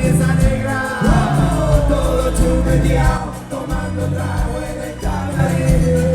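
Live cumbia band music: group singing and a held melody line over a steady bass and percussion, with sliding notes about a second in and near the end.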